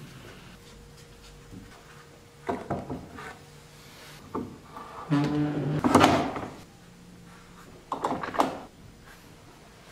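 Wooden boards and bar clamps being handled during a glue-up: knocks and sliding, scraping sounds of wood and clamp jaws, in four short bursts, the loudest about five to six seconds in.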